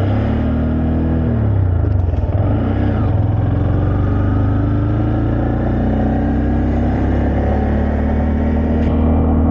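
The Honda Grom's 125cc single-cylinder engine running while being ridden. Its pitch rises early, drops about a second and a half in, then climbs slowly as the bike pulls on.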